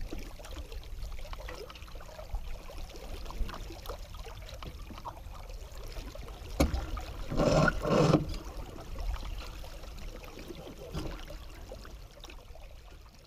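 Water rushing and lapping along a small sailboat's hull under sail, over a steady low rumble, with a louder burst of noise lasting about a second around seven seconds in, as lines are worked during a tack. The sound fades out near the end.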